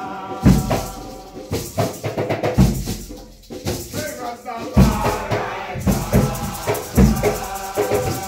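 Nyabinghi drumming with group chanting: a deep bass drum struck about once a second, dropping out briefly near the middle, under lighter drum strokes and many voices singing together.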